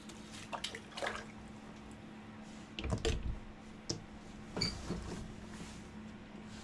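Scattered light knocks and wet, slushy splashing from handling at a slush-filled ice-fishing hole, over a steady low hum.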